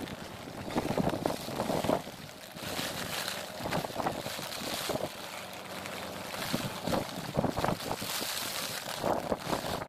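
Wind buffeting the microphone over the rushing noise of a vehicle moving along a wet road, in irregular gusts.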